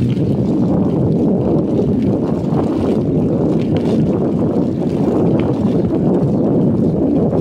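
Wind buffeting the phone's microphone while riding along the street: a loud, steady low rumble.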